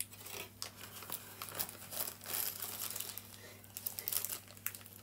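Clear plastic bag crinkling and rustling in irregular bursts as it is handled around a motor inside it.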